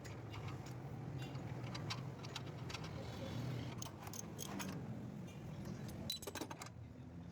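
Scattered small metallic clicks and clinks from hand work on the engine wiring and connectors, over a steady low hum, with a quick cluster of clicks about six seconds in.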